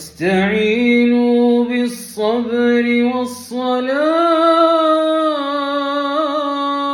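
A man's voice reciting the Quran in melodic tartil style, drawing words out into long held notes with gentle pitch ornaments, broken by brief hissing 's' sounds about two and three seconds in.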